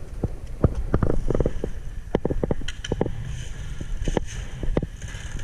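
Wind buffeting the microphone, with scattered sharp clicks and knocks at uneven intervals throughout.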